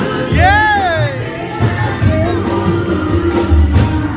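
Loud party music with singing. About half a second in, a voice close by gives a loud whoop that rises and then falls in pitch.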